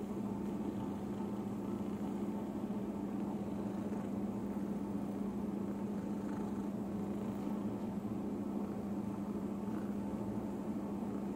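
A steady mechanical hum of clinic noise, with a cat purring under it as she is stroked.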